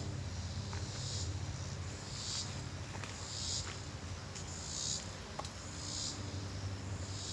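Insects singing: a high buzzing pulse repeating about once every second, over a low steady hum.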